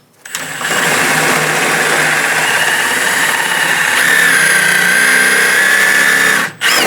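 Electric drill running steadily as it drills out a door trim rivet, its pitch sagging slightly about four seconds in, then stopping shortly before the end.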